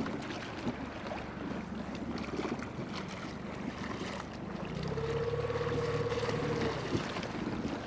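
Boat motor running low in gear, a steady low hum under wind and water noise. About five seconds in a higher steady hum joins for around two seconds, then dips and cuts off.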